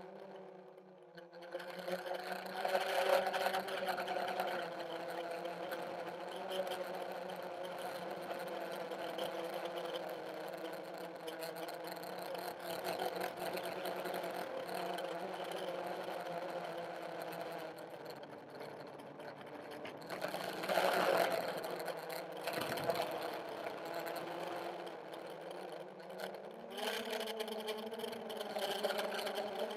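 Armattan CNC 355 quadcopter's electric motors and propellers whirring in flight, heard from the camera mounted on the craft. Several steady tones drift in pitch as the throttle changes, with a brief louder rush about two-thirds of the way through and a step up in pitch near the end.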